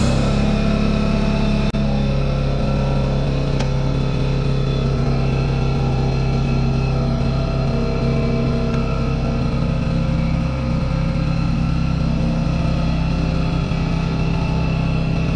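An engine idling steadily, starting abruptly just before and holding an even low pitch throughout.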